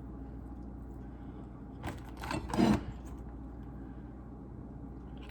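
A short burst of rubbing and scraping about two seconds in, lasting about a second, over a steady low hum.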